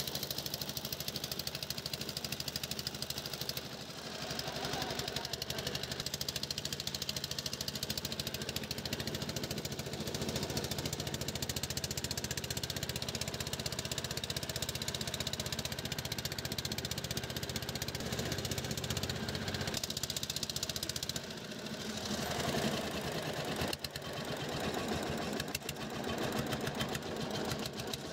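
Engine of a motorised wooden river passenger boat running steadily under way, an even rapid chugging that dips briefly about four seconds in and again near twenty-one seconds.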